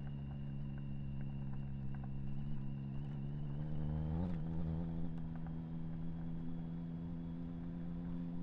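Motorcycle engine running steadily at cruising speed, with a brief wobble in pitch about four seconds in.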